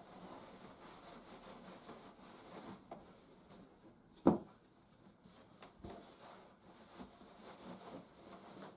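Soft, faint rubbing as a wet plastic PC case side window is wiped dry by hand, with one sharp knock about four seconds in and a few fainter taps.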